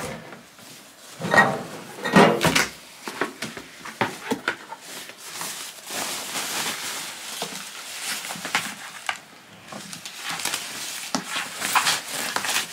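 Packaging being handled and sorted: rustling of wrapping and cardboard with scattered knocks and clicks, loudest about a second and a half and two seconds in.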